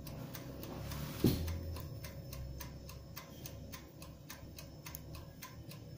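Electric toaster oven running: its mechanical timer ticks steadily, about four ticks a second, over a low hum. About a second in there is one louder short thump.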